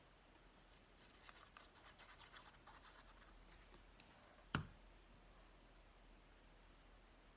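Faint scratching and rustling of paper being glued and pressed down by hand, then one sharp knock about four and a half seconds in.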